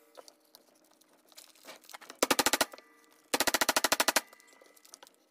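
Hammer tapping wire staples into a wooden board to pin down cotton rope: two very rapid runs of sharp blows, about twenty a second, the first about two seconds in and a longer one a second later.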